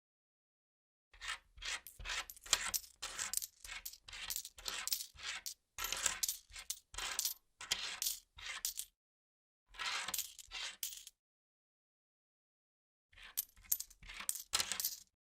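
Money-counting sound effect: coins clinking and being counted in quick runs of sharp clicks, with short pauses between the runs.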